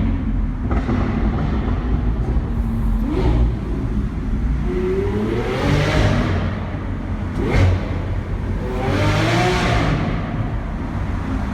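Lamborghini Aventador SV's V12 engine under hard acceleration, the revs climbing twice through the gears. A sharp crack comes at each gear change, about three seconds in and again about halfway through.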